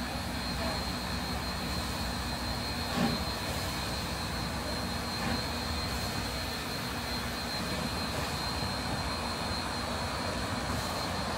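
Steam locomotive at rest or barely moving, giving a steady rushing hiss with a thin high whine over a low hum, and no exhaust chuffs. A single short knock sounds about three seconds in.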